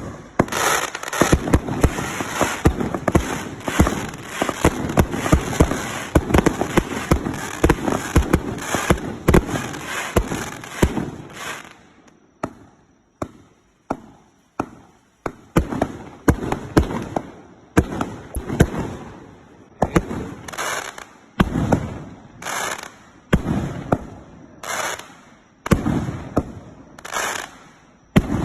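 Karnavalnaya Noch X169A 100-shot firework battery firing. For the first eleven seconds or so the shots come in a rapid, dense barrage. After that they come singly, about one a second, each a sharp bang that dies away quickly.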